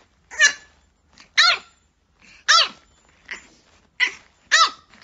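French bulldog puppy barking: about six short, high-pitched yaps, each rising and falling in pitch, spaced half a second to a second apart.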